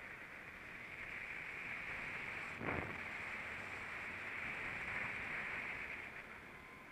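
Go-kart on track, heard from onboard: a steady muffled engine drone and wind rush, with a single sharp knock about two and a half seconds in.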